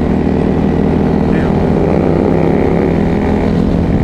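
Supermoto motorcycle engine running at riding speed, heard from the rider's helmet, its revs climbing gradually through most of the stretch.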